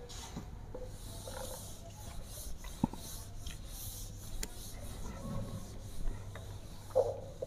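Whiteboard duster wiping across a whiteboard: faint, intermittent rubbing, with a couple of light knocks.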